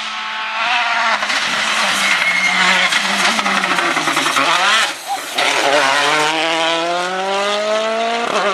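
Rally car's engine at full load: the revs hold and sag, cut out briefly about five seconds in at a gear change, then climb steadily for about three seconds before the next shift near the end.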